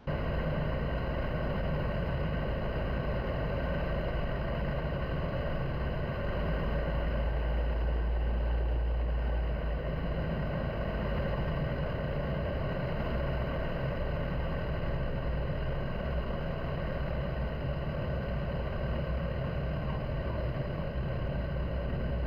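Single-engine light aircraft's piston engine and propeller running steadily, with wind noise over the airframe, on final approach and landing. The low rumble swells for a few seconds about a third of the way in.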